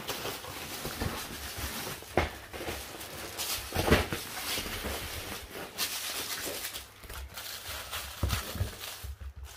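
A puppy's paws and claws pattering and clicking on a vinyl floor as it plays with a plush toy, with scattered knocks and a few louder thumps.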